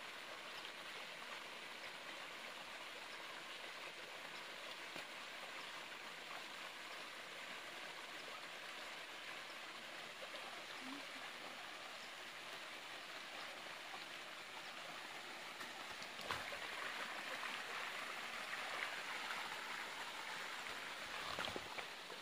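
Steady rush of running stream water, a little louder over the last quarter, with two brief knocks near the end.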